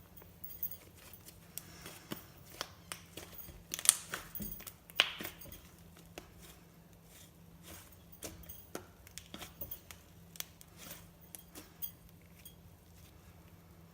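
Glossy slime being handled: irregular sticky clicks and pops, with two louder snaps about four and five seconds in.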